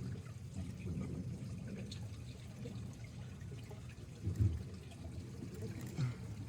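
Pond water trickling and pouring steadily, with a dull low bump about four and a half seconds in.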